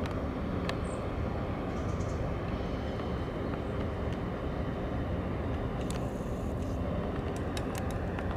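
Steady low rumble of a large container ship's diesel engine as the ship passes close by, with a few faint clicks.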